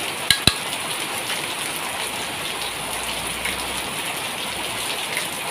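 Coconut-milk curry with sweet snails bubbling at the boil in a pan: a steady crackling, spattering hiss. Two sharp clicks near the start.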